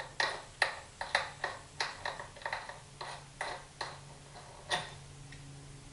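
Light metallic clicks, about a dozen at an uneven pace, from fork parts being handled by hand at the top of a Honda XR650L front fork tube; they stop about five seconds in.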